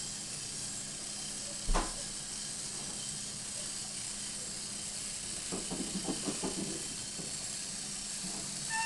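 Steady hiss, with a single sharp knock a little under two seconds in and a short run of light clacks in the middle, from a wooden toy train and its coaches rolling over the joints of wooden track.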